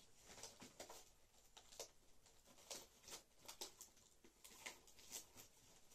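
Near silence: quiet room tone with faint, scattered soft clicks.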